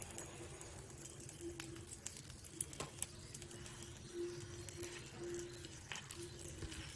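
A pat of butter melting in a hot iron kadai, sizzling faintly with a few scattered small pops as it begins to foam.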